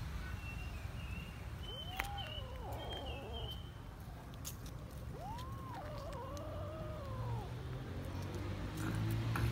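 Kitten meowing: a short rising-and-falling meow about two seconds in, then a longer, wavering meow from about five to seven and a half seconds, over a steady low background rumble.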